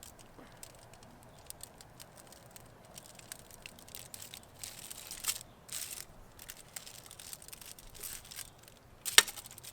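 Faint scattered crackling and crinkling as the crisp deep-fried Pizza Pop crust is handled and broken open, with one sharper crack near the end.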